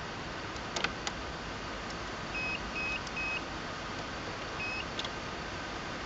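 Portable lithium jump starter pack beeping: three short high beeps in quick succession, then a single slightly longer beep about a second and a half later, with a few sharp clicks, over a steady background hiss.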